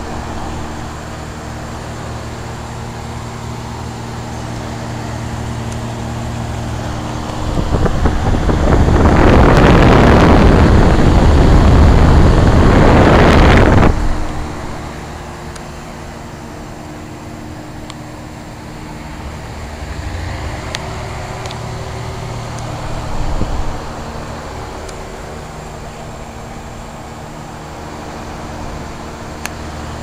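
1983 General Electric Executive Weathertron heat pump's outdoor unit running in cooling mode: a steady hum of the condenser fan and compressor, a little bit noisy, with most of the noise seeming to come from the fan motor rather than the compressor. In the middle, for about six seconds, a much louder rushing noise covers the hum.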